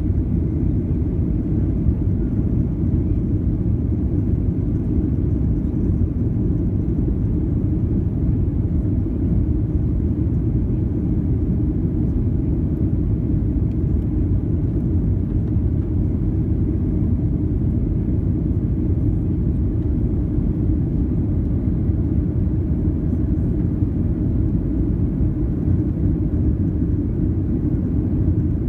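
Steady low cabin rumble inside a Boeing 737-800, the even noise of the engines and airflow heard from a passenger seat.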